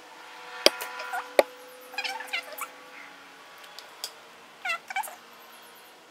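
Two sharp snips of scissors cutting wool yarn. Then come a few short animal calls, each falling in pitch, in two small groups: one about two seconds in and another near the end.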